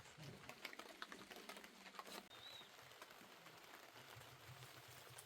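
Faint light rain pattering, with scattered small drip ticks in the first two seconds and one brief high chirp about two and a half seconds in.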